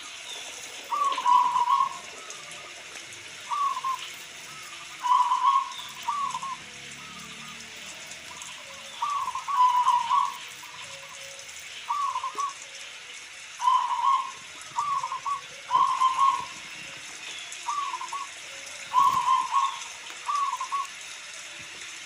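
Local-type zebra dove (perkutut) cooing: about a dozen short phrases, one every second or two, over a steady hiss of rain.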